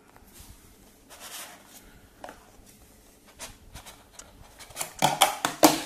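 A small cardboard gift box being handled one-handed while its paper sleeve is slid off: faint scrapes, rustles and a few light taps, with a louder burst of scuffing about five seconds in.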